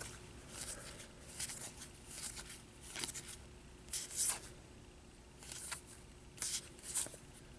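2017 Topps Series 1 baseball cards being flipped through one after another. Faint card-on-card slides and flicks come roughly once a second.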